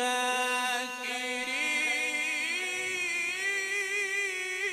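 A male qari reciting the Qur'an unaccompanied, drawing out one long melodic phrase with wavering ornaments that climbs in pitch about a second and a half in.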